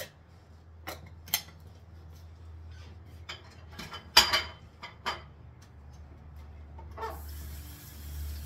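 Kitchen dishes and utensils knocking and clattering, about six sharp knocks with the loudest a little after four seconds in, over a steady low hum; about seven seconds in, a tap starts running.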